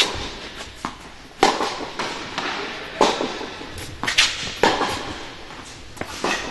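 Tennis ball being hit back and forth with racquets in a rally, about six sharp pops, roughly one to one and a half seconds apart, each echoing in an indoor tennis hall.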